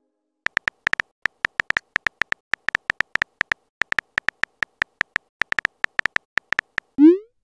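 Texting-app typing sound effect: a fast, uneven run of short, high clicks, all at one pitch, as a message is typed. Near the end a quick upward swoop sounds as the message is sent.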